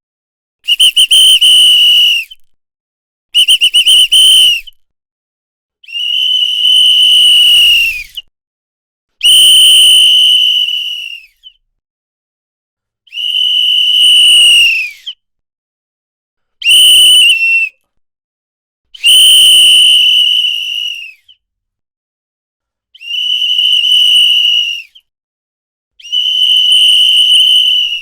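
Hand-blown whistle sounding in nine separate blasts of one to two seconds each, a high steady tone with silent gaps between them. Some blasts open with a few quick stuttering toots, and a few drop in pitch as they end.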